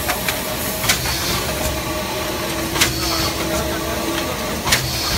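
LX3122 trim-in-place thermoforming machine running through its forming and cutting cycle, a sharp clack about every two seconds (three times) over a steady mechanical hum and hiss. The rhythm matches its 30-cycles-per-minute rate on 0.2 mm PET trays.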